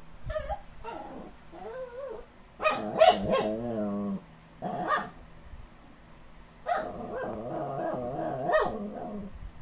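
Dog 'talking': several bouts of drawn-out, wavering whine-growl vocalising that bends up and down in pitch. The longest bout comes in the second half.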